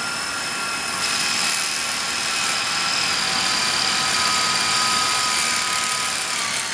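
Bosch 12 V impact driver motor whining steadily as its rubber-tired socket spins the hand wheel of a Singer 27 Sphinx treadle-head sewing machine, driving the machine at speed.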